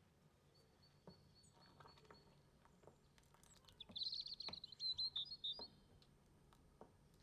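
A small bird chirping: a faint run of high repeated notes, then a louder, rapid chirping trill about four seconds in, with a few faint clicks.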